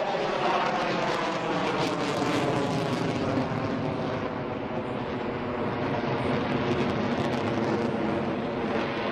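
An F-22 Raptor's twin Pratt & Whitney F119 turbofan engines are heard as the jet flies overhead. A whine falls in pitch over the first couple of seconds, then gives way to a steady rushing jet noise.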